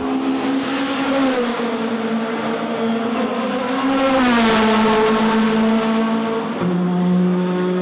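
Turbocharged race car engine at high revs passing by. The pitch climbs, peaks and drops about four seconds in as the car goes past. Near the end the sound switches abruptly to a different steady engine note.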